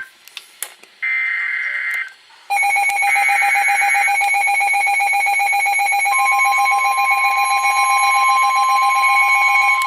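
Weather radio alert: a short burst of warbling digital SAME header tones about a second in. At about two and a half seconds the receiver's loud, rapidly pulsing alarm buzz starts, with a second burst of data tones over it. About six seconds in, the steady NOAA Weather Radio warning alarm tone joins.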